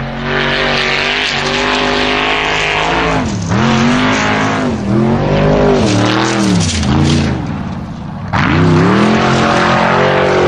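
Formula Offroad buggy's race engine revving hard on a loose dirt climb, its note dropping and climbing back several times as the throttle is lifted and reapplied, over a hiss of spinning tyres throwing dirt. After a short easing, it comes back louder near the end.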